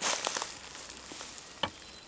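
Footsteps on dry leaf litter and twigs on a woodland floor: a few rustling crackles, then one sharp click about one and a half seconds in.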